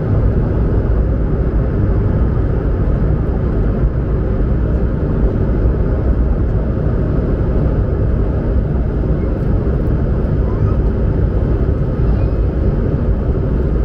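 Steady engine and airflow noise of an Airbus A220-100 airliner heard from inside the passenger cabin: an even, deep rumble with no change in level.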